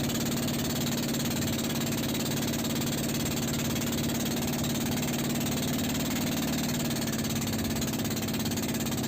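Motorized bangka's engine running steadily at a constant speed, a continuous even drone with a noisy mechanical clatter over it.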